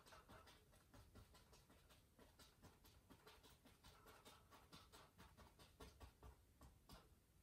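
Faint, quick strokes of a small brush on a wet oil-painted canvas, several short dabs a second in an uneven rhythm, as thinned light paint is flicked on to highlight tree branches.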